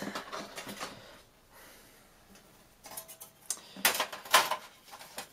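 PlayStation 4's thin sheet-metal shield plate being handled and laid over the console's circuit board: scattered light clicks and rattles, then a louder metallic clatter and scrape about four seconds in.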